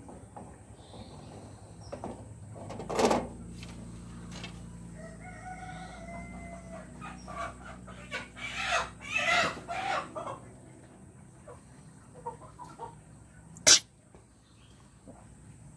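A rooster crows once about five seconds in, followed by a few seconds of chicken clucking. Sharp clicks or knocks come about three seconds in and, loudest, near the end.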